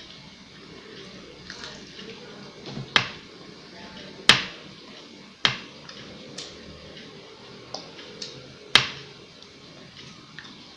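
A few loud, sharp clicks or knocks, each with a short ringing tail, spaced a second or more apart, with fainter ones between, over a quiet room.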